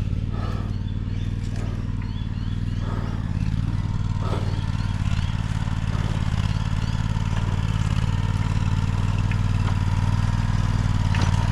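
An engine running steadily at a low idle, getting slightly louder toward the end, with a few light clatters in the first half.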